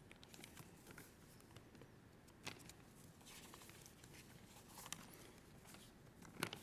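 Near silence: room tone with a few faint clicks and knocks.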